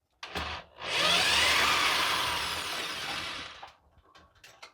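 Power drill running to back out a small screw: a short blip, then about three seconds of steady running that tails off and stops, followed by a few light clicks.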